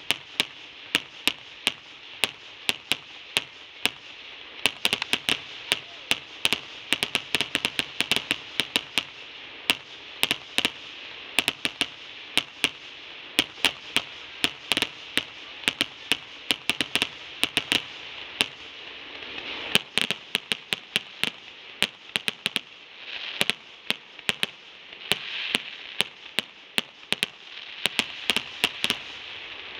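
Aerial fireworks display: a dense, irregular barrage of sharp shell bursts and bangs, several a second at times, over a continuous hiss.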